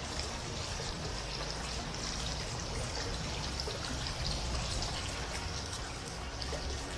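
Steady rush of a flowing stream, with a few faint crisp cuts of a kitchen knife slicing a green bell pepper held in the hand.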